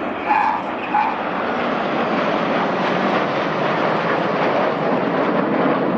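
BAE Hawk T1 jets, with Rolls-Royce Turbomeca Adour turbofans, flying a low display pass with a steady jet roar that builds a little over the first couple of seconds.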